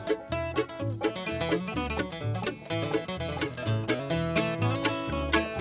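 A bluegrass string band playing an instrumental break with no singing: fast picked string notes over an alternating bass line.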